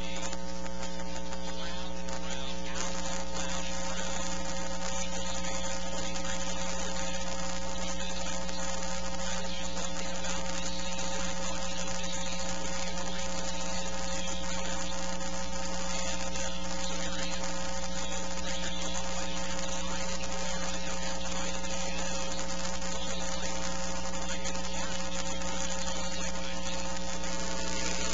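Steady electrical mains hum and buzz with hiss, unchanging throughout.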